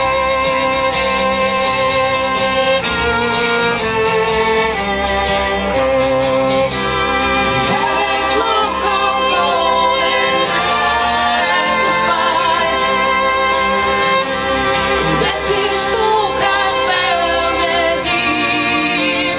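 String quartet of violins, viola and cello playing sustained, changing chords, with a voice singing over the strings.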